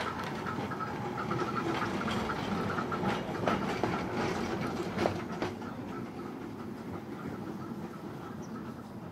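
Open-top double-deck electric tram (Seaton Tramway No. 8) passing close by on rails. Its running noise grows to a peak with sharp wheel clicks and clacks about three to five seconds in, then fades as it moves away.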